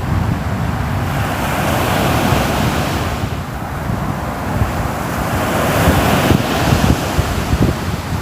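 Ocean waves breaking on a shore, the surf swelling and washing in twice, with a steady low rumble and some wind.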